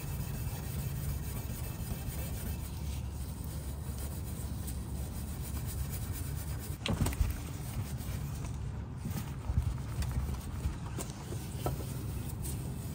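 Fine 0000 steel wool rubbed back and forth over a chrome exhaust tip trim, scrubbing off carbon soot buildup. A couple of sharper knocks come about seven and nine and a half seconds in.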